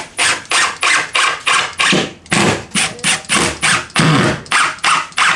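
Cordless drill driving screws through a wooden board into plywood, its sound coming in short even pulses about three a second.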